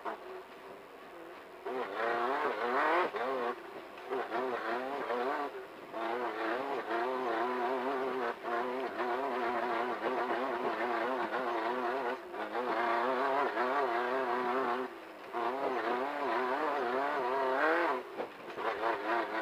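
Class 1500 off-road race car's engine running at high revs, its pitch rising and falling rapidly and unevenly, with brief dips every few seconds as the throttle lifts or a gear changes.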